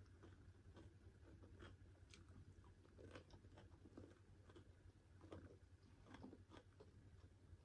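A person chewing a mouthful of pork curry and rice, with soft wet mouth clicks and smacks at irregular intervals, over a low steady hum.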